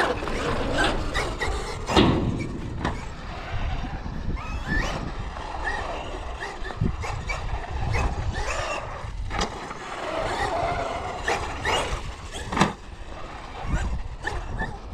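Traxxas XRT RC monster truck driving on concrete: its brushless electric motor whines up and down in pitch as it accelerates and backs off, with tyre noise and sharp knocks now and then from its bumps and landings.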